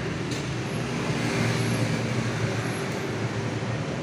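Steady background rumble of road traffic with a running engine, and a faint click about a third of a second in.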